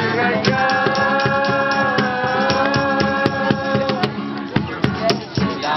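Acoustic guitars strummed with a cajón drumming a steady beat, and voices singing; one sung note is held from about half a second to four seconds in.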